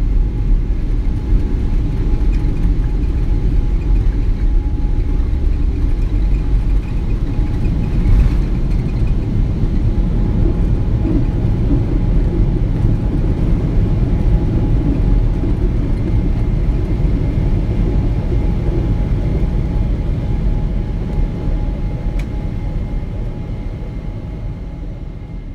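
Boeing 787 Dreamliner takeoff heard from inside the cabin: a loud, steady low rumble of the jet engines at takeoff power and the runway roll, easing a little in the last few seconds as the aircraft climbs away.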